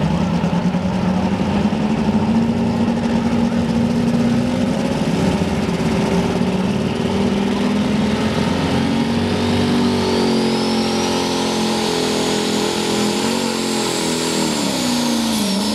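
Modified two-wheel-drive pulling truck's engine running hard under load during a sled pull. A high whine climbs steadily through the second half, then falls away near the end as the engine's pitch drops.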